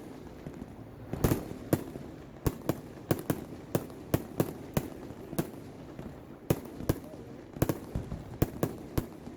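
Fireworks bursting overhead during a display: an irregular run of sharp bangs, about two a second, some trailing off in a short echo.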